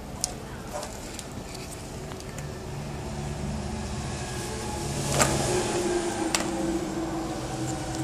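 A motorcycle wiring harness's plastic connectors and taped wires being handled, giving a few sharp clicks, over a steady low hum that grows louder about five seconds in.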